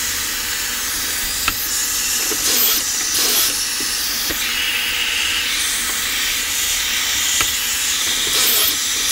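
A dust-collection vacuum hooked to a Kreg pocket-hole jig runs as a steady hiss. A cordless drill bores pocket holes now and then, with a few sharp clicks.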